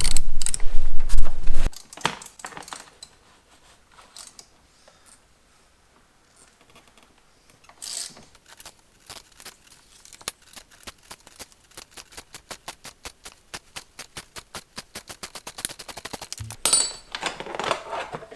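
A ratchet wrench with a T47 Torx bit clicking steadily, several clicks a second, as it backs out the bolt holding a car's seatbelt pretensioner. It starts with rough metal handling noise and ends with a clatter near the end.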